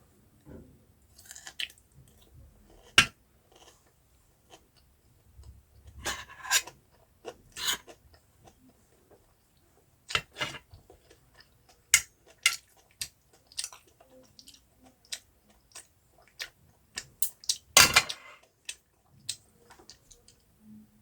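Close-miked eating sounds: irregular chewing and crunching, with sharp clicks scattered through it.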